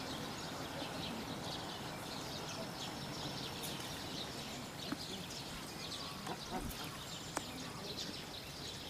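Outdoor zoo ambience: a steady background murmur with distant voices and many faint, short high chirps, and a few light clicks in the second half.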